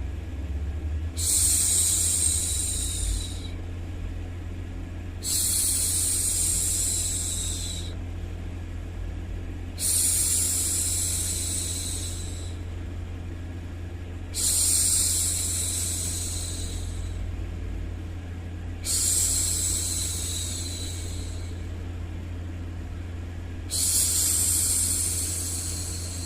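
A woman's voice making long hushing "shhh" sounds to soothe a baby, six times about four and a half seconds apart, each lasting two to three seconds. Under them runs a steady low hum.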